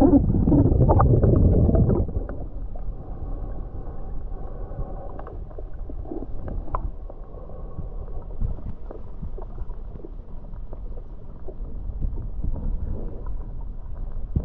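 Muffled underwater water noise picked up by a submerged action camera: a loud churning rush for the first two seconds, then a steady low wash with faint ticks and gurgles.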